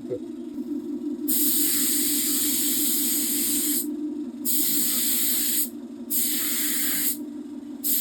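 Air spray gun fed by a homemade compressor spraying in four bursts of hiss, the first about two and a half seconds long and starting about a second in, the rest shorter. Under it runs the steady hum of the motor-driven compressor.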